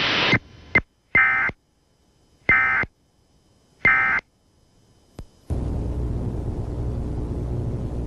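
Emergency Alert System end-of-message signal: three short, identical bursts of data tones about a second apart, the EAS digital code that closes a test alert. A click comes about five seconds in, then a steady hiss with a low hum.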